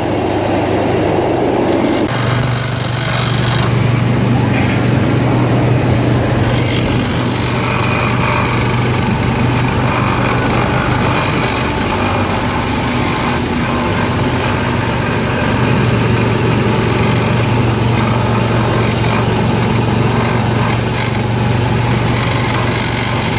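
Small gasoline engine of an antique-style track-ride car running steadily, heard from inside the car as it drives along its guide-rail track.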